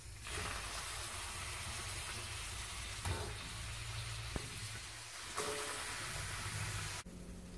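Cashew cream sauce sizzling in a frying pan as pieces of boiled chicken are spooned in, with a few light knocks as the pieces drop in. The sizzle cuts off suddenly near the end.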